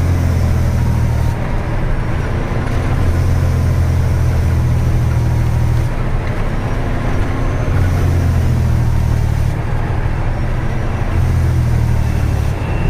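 Tata 3118 truck's diesel engine running under way, heard inside the cab as a loud low drone. It drops back and picks up again about every three seconds.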